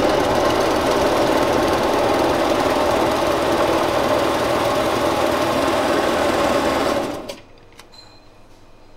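Electric vegetable chopper running, its blade spinning in a steel bowl and chopping tomatoes and green peppers to a fine mash. The motor runs steadily, then winds down and stops about seven seconds in.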